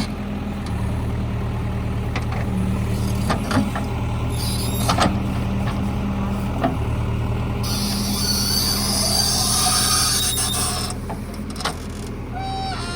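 JCB 3DX backhoe loader's diesel engine running steadily while working, with a few short knocks and, past the middle, a hiss lasting about three seconds.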